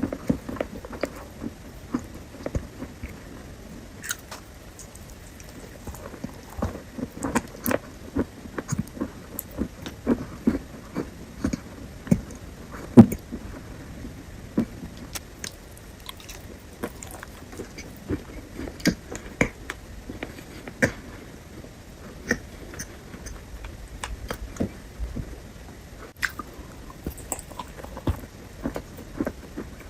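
Close-up sounds of a person biting and chewing fresh fruit: irregular wet crunches and smacks, with one sharp, loud crunch about halfway through.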